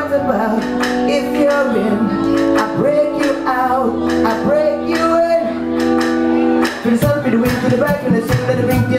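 A male singer sings into a microphone over a live band, with held chords and a steady drum beat. About seven seconds in the held chords drop out, leaving the drums and voice.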